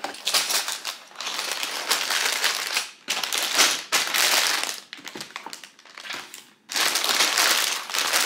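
Cardboard box being opened and plastic bags of building-block pieces being pulled out and handled, crinkling and rustling in stretches with a short lull past the middle.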